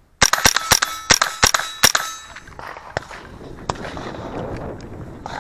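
Six quick .22 LR rimfire shots from a gun fitted with a CMMG .22 LR conversion, each with a short ringing tone after it, in about two seconds. Then rustling movement with a few faint clicks.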